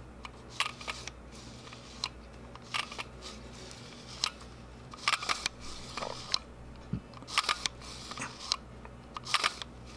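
Damaged Canon camera lens mechanism clicking and crunching as its barrel is turned by hand: irregular sharp clicks, several a second, often in small clusters. The clicking is the sign of broken nylon gear wheels inside the lens.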